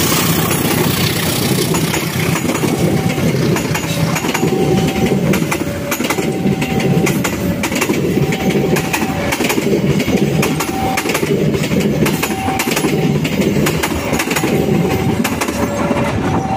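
A passenger train's coaches running past close by, wheels clattering over the rail joints over a steady rush of noise. A level-crossing warning gives a short beep about once a second.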